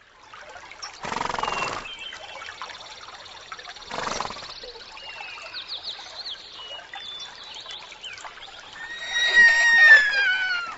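A horse whinnies loudly near the end, one long call falling in pitch, over birds and insects chirping. Before it come two short rushing blows, about a second in and again about four seconds in.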